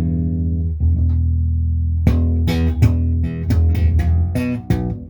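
Lyle 5120 short-scale, full hollow-body electric bass being played. Two long held low notes come first, then from about two seconds in a quick run of plucked notes.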